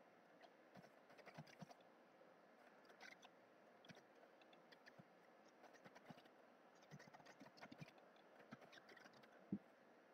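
Faint computer keyboard typing: irregular, scattered key clicks, with one louder click near the end.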